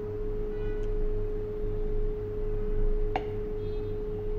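A steady hum with one held tone that does not change, over a pulsing low drone. There is a single sharp click about three seconds in.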